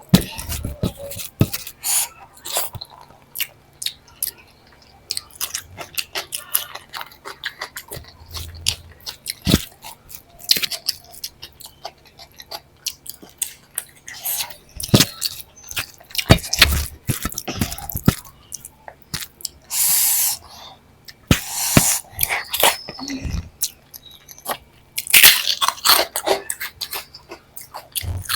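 Close-miked eating sounds: chewing of dal, rice and fried vegetables, with many sharp crunches and wet mouth clicks, and longer crunching bursts about twenty and twenty-five seconds in.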